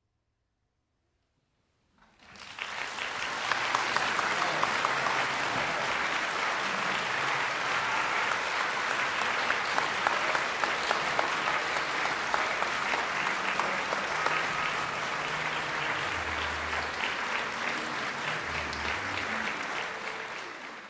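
Brief silence, then an audience breaks into sustained applause about two seconds in, which dies away at the very end.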